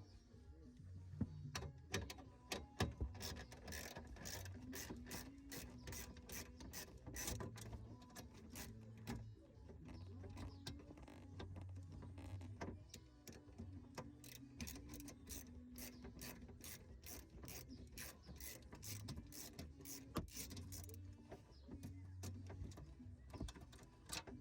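Hand ratchet wrench clicking in quick runs as it backs out 7 mm bolts.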